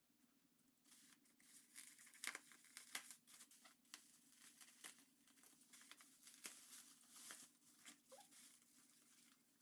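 Faint crinkling and tearing of packaging, small irregular crackles as product packages are opened by hand.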